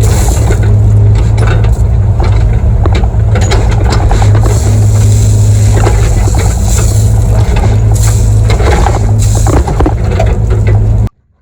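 Excavator engine running steadily under load while the bucket scrapes and knocks through dirt and gravel, with frequent short clatters; the sound cuts off suddenly near the end.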